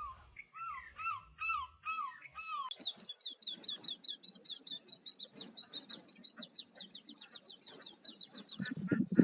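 Bird calls: a string of falling whistled notes, about two a second, then a fast high-pitched trill of many short notes a second. A few low thumps come near the end, the last one the loudest.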